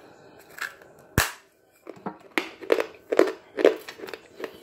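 A chunk of chalk is bitten off with one sharp, loud snap about a second in, then chewed in a run of crunches about two a second.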